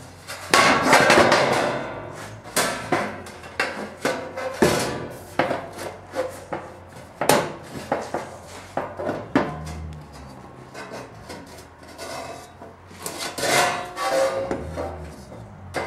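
Thin 24-gauge sheet metal being shifted, flexed and folded with a hand folding tool against a wooden table: a string of knocks, clatters and scrapes. The sheet gives a long rattling wobble in the first couple of seconds, and a short metallic ring near the end.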